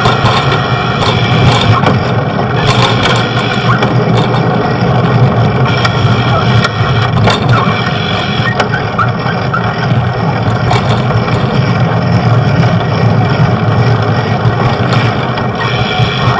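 Steady, loud street traffic and road noise heard while cycling through a city.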